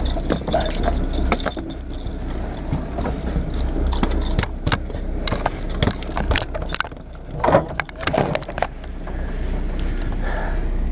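Steady low drone of a sportfishing boat's engine, with a run of short clicks and metallic clinks on deck throughout.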